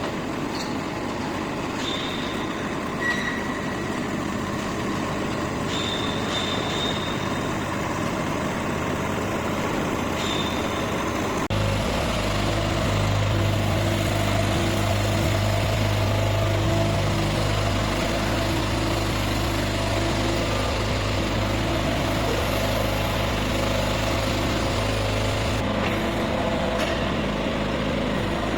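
Mini crawler excavator working, its engine and hydraulics running, with a few short high squeaks in the first part. About halfway through the sound changes abruptly to a steadier, deeper engine drone.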